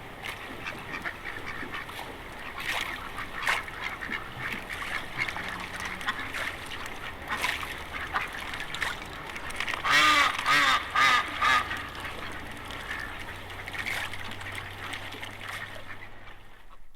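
Waterfowl calling over and over, with a louder run of about four calls around the middle; the recording cuts off abruptly just before the end.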